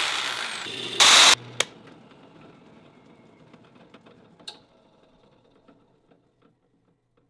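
Corded jigsaw cutting wood in short loud bursts, the loudest about a second in, then a low motor hum with scattered light ticks that fades away over several seconds. A single sharp click comes about four and a half seconds in.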